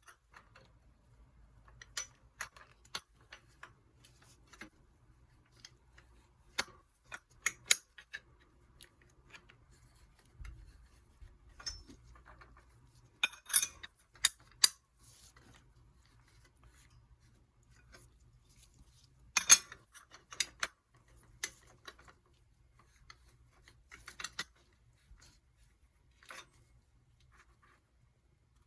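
Metal tools and bicycle parts clinking and clicking now and then, in short irregular taps with quiet gaps, as bottom bracket parts are handled.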